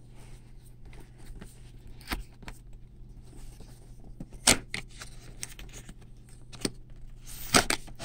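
Cardboard box being handled and turned over in the hands: scattered taps and knocks against the cardboard, the loudest about four and a half seconds in, over a low steady hum. Near the end a rubbing scrape of cardboard begins.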